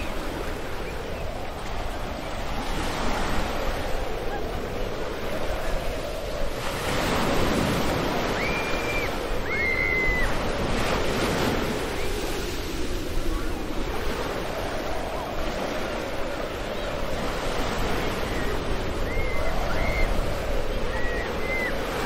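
Surf breaking and washing up on a sandy beach: a continuous rushing noise that swells and eases as each wave comes in, with some wind. A few short high calls come about eight seconds in and again near the end.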